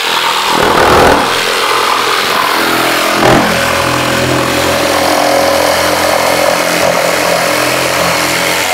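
Mafell P1CC jigsaw, with its 900 W universal motor, running steadily as its blade cuts along a marked curved line in timber. It grows louder for a moment about one second in and again around three and a half seconds.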